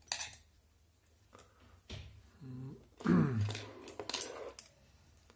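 Clicks and rustles of an RC car chassis and small plastic parts being handled on a workbench. A man makes two short wordless vocal sounds, the louder one just after three seconds in, a falling hum like a throat clearing.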